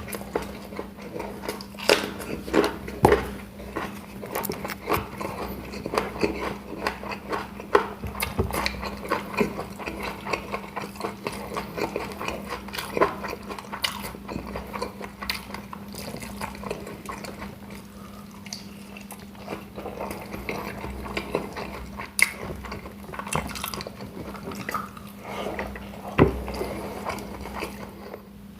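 Close-up eating sounds of a person eating fried chicken with rice: chewing and biting, with many short sharp clicks and smacks throughout.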